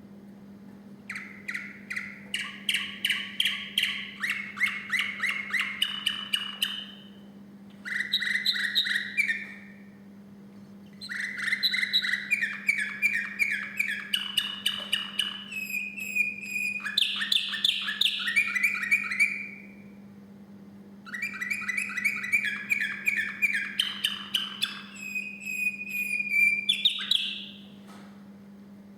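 Male song canary singing in four bouts, each made of fast trills of repeated notes that change pitch from section to section, with short pauses between bouts. A steady low hum runs underneath.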